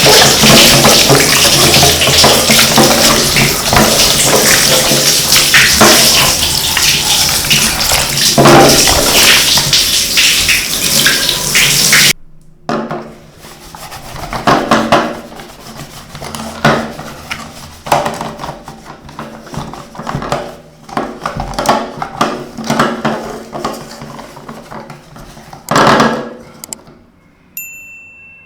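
Running water spraying loudly and steadily for about twelve seconds, then cutting off suddenly. Quieter irregular rubbing and handling sounds follow, and a short high beep comes near the end.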